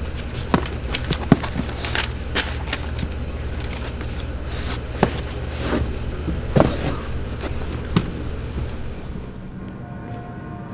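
Irregular knocks and thumps of books being handled and pulled from shelves, over a steady low hum. Near the end these stop and music with held tones comes in.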